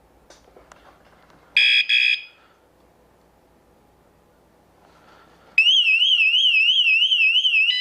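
WSDCAM e-bike alarm unit sounding. It gives two short high beeps, then from about halfway through a loud electronic siren that warbles up and down about four times a second, changing to a steady tone right at the end.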